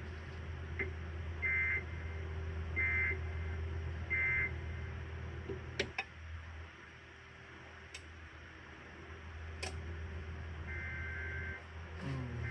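EAS end-of-message code: three short two-tone data bursts about a second and a half apart, closing the severe thunderstorm warning. A few faint clicks follow, and near the end a longer data burst starts, the SAME header of the next alert.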